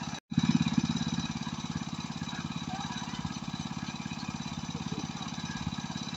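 A small engine running steadily with a rapid, even pulse, dropping out for an instant just after the start.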